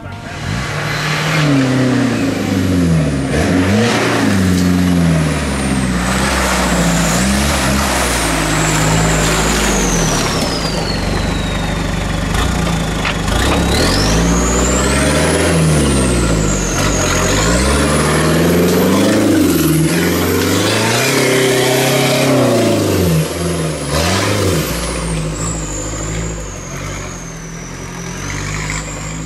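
Modified off-road 4x4 truck engine revving up and down again and again as it works over rough trail, with a thin high whine that rises and falls with it. It gets quieter over the last few seconds.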